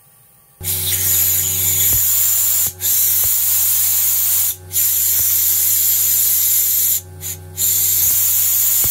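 Fuel injectors on a test bench spraying test fluid driven by compressed air into glass cylinders: a loud steady hiss over a low hum, starting about half a second in and cutting out briefly three times.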